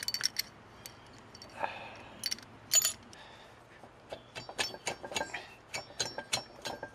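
A series of metallic clinks and knocks from the cylinder head of a 1969 Triumph T150 Trident three-cylinder engine as it is rocked and lifted off by hand, with one louder clank a little under three seconds in.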